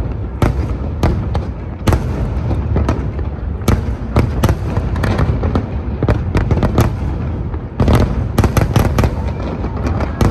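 Aerial fireworks display: a rapid, irregular run of bangs and crackles from bursting shells over a continuous low rumble, densest near the end.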